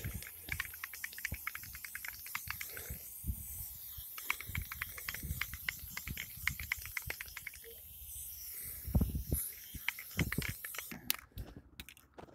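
Aerosol spray paint can hissing as paint is sprayed, with rapid clicking throughout; the hiss stops near the end.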